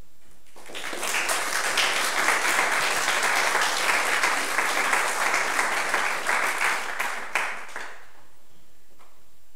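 Audience applauding, starting about half a second in, holding steady, then dying away about eight seconds in.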